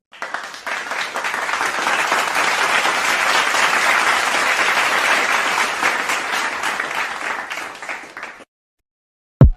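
Applause sound effect: a crowd of many people clapping, fading somewhat toward the end and cutting off about eight and a half seconds in. A single sharp hit sounds just before the end.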